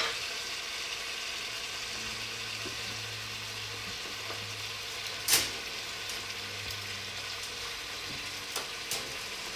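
Chunks of beef searing in a cast-iron pot, sizzling steadily, with a single sharp knock about five seconds in.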